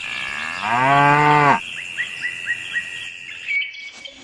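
A single cow moo, about a second long, falling in pitch as it ends, over a steady high background tone. A quick run of about five short high chirps follows it.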